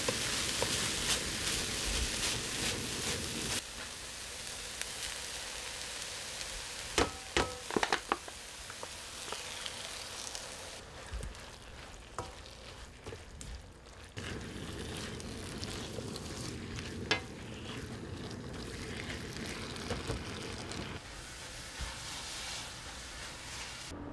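Ground meat sizzling as it is stir-fried in a nonstick frying pan with a wooden spatula. A few sharp knocks come about a third of the way in and again later.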